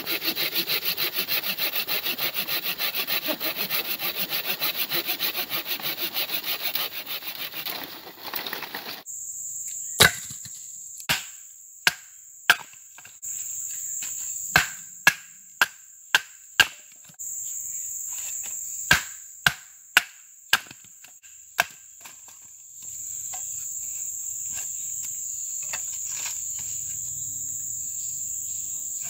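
A folding pruning saw cuts through a branch in quick back-and-forth strokes, stopping about nine seconds in. After that a steady high insect chorus runs under a dozen or so sharp, irregularly spaced wooden knocks as a large knife is struck into an upright wooden stake.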